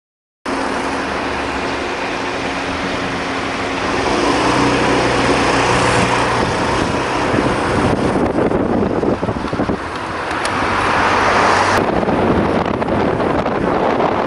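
Honda Lead 125 scooter's single-cylinder engine running on the move, mixed with heavy wind noise on the microphone. It starts abruptly about half a second in and grows louder about four seconds in.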